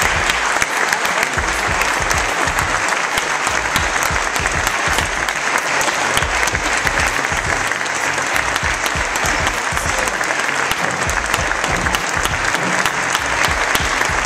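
Many people clapping their hands in sustained, dense applause.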